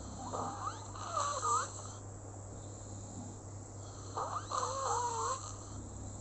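Snoring: two breaths about four seconds apart, each carrying a wavering, whistle-like tone.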